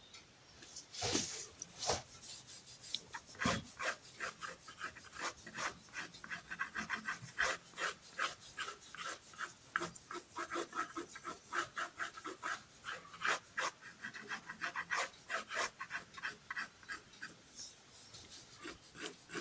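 Pencil strokes scratching across paper in quick, short back-and-forth runs as lines are drawn, with a couple of longer scrapes near the start.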